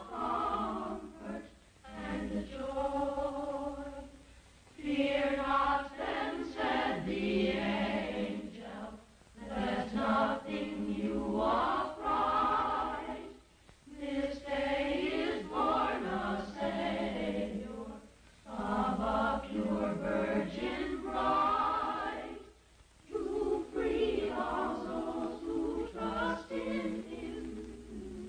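Choir singing in sung phrases of a few seconds each, with short pauses between them.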